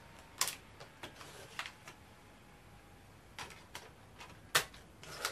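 A Sony VAIO laptop's DVD drive tray being opened and a DVD loaded onto it: a string of sharp plastic clicks and snaps, the loudest about four and a half seconds in.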